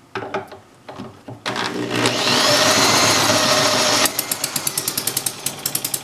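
A cordless drill spins the model overhead-cam engine over to start it, giving a steady whine for about two and a half seconds. About four seconds in the drill stops and the engine catches. It then runs unloaded at a fast idle with a rapid, even exhaust beat.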